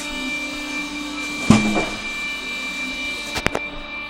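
Sike S-520 truck tyre changer running, its motor giving a steady whine. There is a loud clank about a second and a half in, and a quick pair of knocks near the end.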